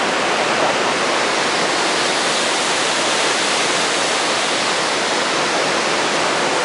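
Steady, loud rush of flowing water.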